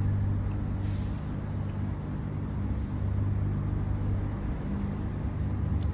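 Steady low hum with a faint brief rustle about a second in.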